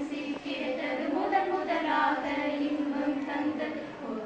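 Young women singing a slow melody without accompaniment, with long held notes.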